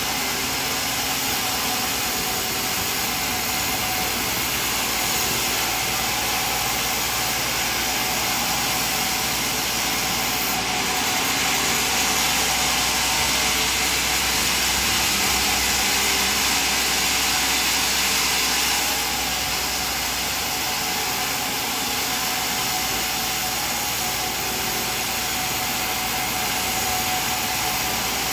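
Sawmill machinery running with a steady, hissing mechanical noise that swells a little for several seconds in the middle.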